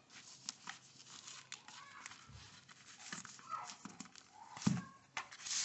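Faint handling noises: light clicks, taps and rubbing as wood pieces and a pencil are handled, with one sharper knock near the end.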